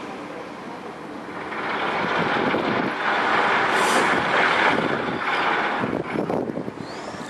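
Twin-engine jet airliner climbing out after takeoff, its engines at takeoff thrust: a broad rushing jet noise that swells about a second and a half in, is loudest in the middle and fades near the end as the aircraft draws away.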